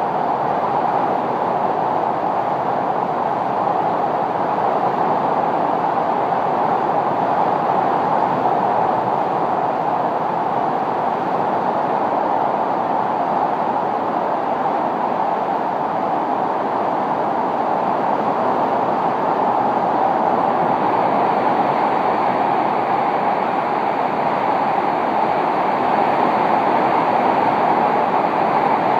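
Hurricane-force wind and heavy driving rain making a steady, loud rushing noise, which turns hissier about two-thirds of the way through.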